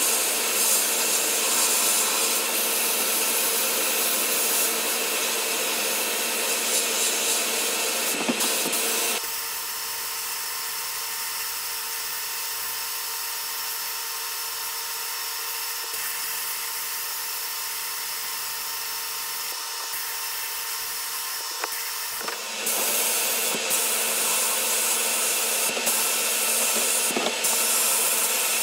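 Sandblasting cabinet: the blast gun's steady hiss of air and abrasive media stripping old paint off a pressed-steel toy truck cab, with a steady hum beneath it. In the middle stretch the hiss turns thinner and a little quieter for about thirteen seconds, then comes back full.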